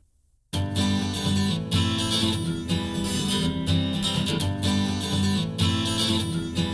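Strummed acoustic guitar music, the instrumental opening of an acoustic song, starting abruptly after about half a second of silence.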